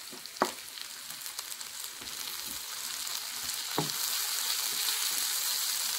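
Sliced onions frying in avocado oil in a skillet, sizzling as chopped tomatoes and crushed garlic and ginger are tipped in and stirred with a wooden spoon. Two sharp knocks, about half a second in and near four seconds, and the sizzle grows louder in the second half.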